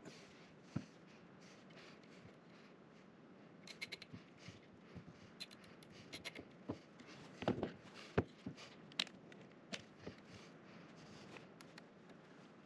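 Black plastic cable ties being fastened and trimmed around a cable on a laser engraver's aluminium frame: scattered small clicks and handling rustle, a quick run of clicks about four seconds in, and several sharp snips between about seven and ten seconds in.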